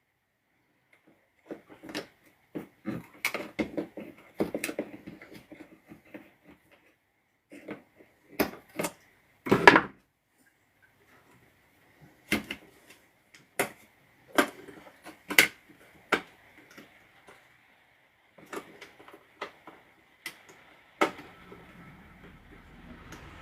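Irregular clicks and knocks of small tools and angle-grinder parts being handled and set down on a workbench, the loudest sharp knock about ten seconds in. A steady noise begins to rise near the end.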